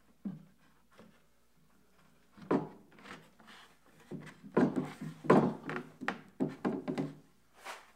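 Plywood bed-frame rail handled against its wooden dowels: a run of irregular wooden knocks and rubs starting about two and a half seconds in, heaviest in the second half.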